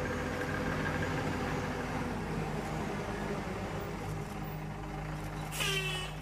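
A bus engine running steadily, with a short falling squeal near the end.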